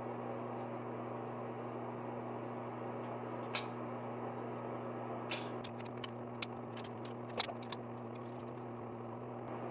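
Light clicks and taps of small plastic bidet-seat mounting parts being handled and fitted: one about a third of the way in, then a cluster of several over the next few seconds. A steady background hum from a fan or air conditioner runs underneath.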